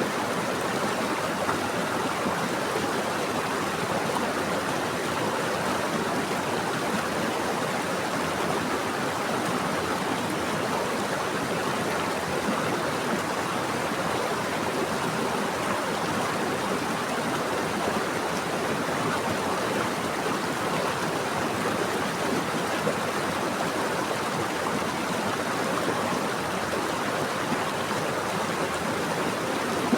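Running water flowing steadily, an even rushing without breaks or changes.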